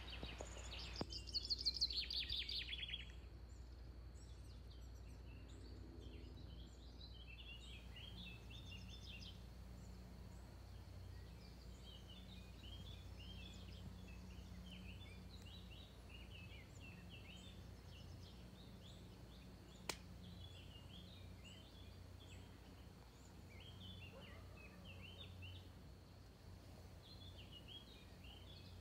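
Small birds chirping at intervals, with a louder trilling call about one to three seconds in and a faint steady high whine underneath. A single sharp click sounds about twenty seconds in.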